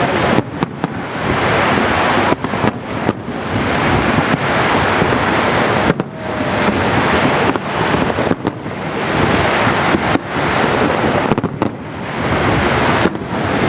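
Fireworks display: a dense, continuous barrage of bursts and crackling, its loudness swelling and dropping back about every two seconds.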